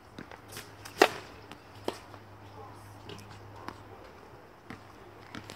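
A tennis racket striking the ball on a serve: one sharp, loud pock about a second in, with a few lighter taps from the ball and shoes on the hard court around it.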